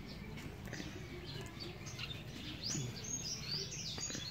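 Small birds chirping in the background, a run of quick, high repeated chirps starting a little over halfway in, over a steady low background hum of outdoor noise.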